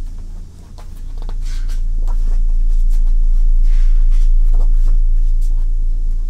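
Pages of a glossy album photo book being turned by hand, with a few soft paper swishes and rustles. A steady low hum underneath is louder than the paper sounds.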